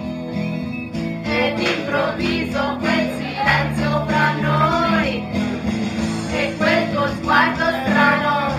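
Live singing through microphones and a PA system over amplified backing music with sustained low notes.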